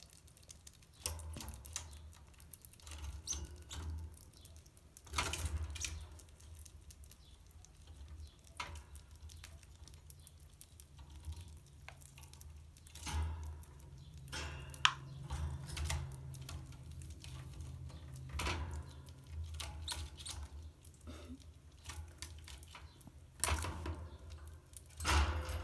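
Baby red squirrels nibbling food and scrabbling about on fleece bedding in a wire cage: scattered small clicks, scratches and rustles, one sharp click about halfway through, over a low rumble.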